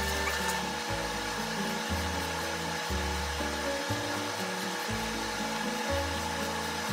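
Small knife scoring slices of daikon radish in a crosshatch on a wooden cutting board, giving a steady scratchy, sawing sound. Background music with a bass line plays underneath.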